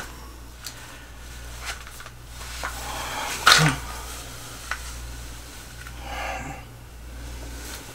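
Handling noise from a pistol being drawn from a belt holster and brought up to aim: soft clothing rustle and a few small clicks and knocks, the sharpest about three and a half seconds in, over a steady low electrical hum.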